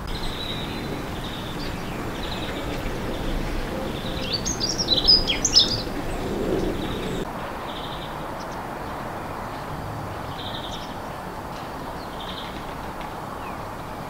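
Small songbirds: a short, fast, high-pitched warbling phrase about four seconds in, over short high call notes repeating every second or so, with a steady low background hum.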